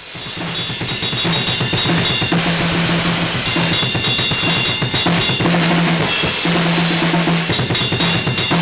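Music track with a fast drum-kit beat and a bass line, fading in at the start.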